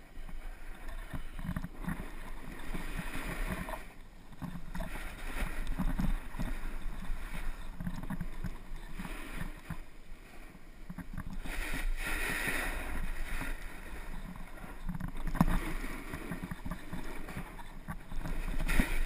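Snowboard sliding and carving down packed, chopped-up snow: a scraping hiss that swells with each turn and eases between them, about every three to four seconds. Wind rumbles on the microphone underneath.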